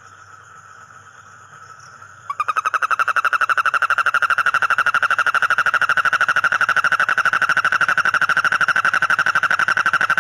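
A frog calling with its vocal sac inflated: a loud, fast, even pulsed trill that starts abruptly about two seconds in and keeps going. Before it starts there is a fainter steady high trill in the background.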